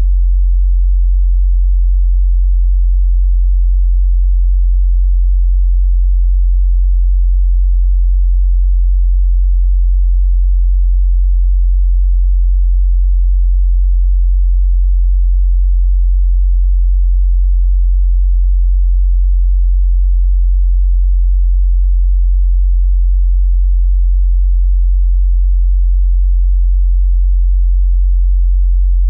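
A steady 45 Hz sine-wave test tone for subwoofer bass, one unchanging very low hum that starts abruptly at the beginning.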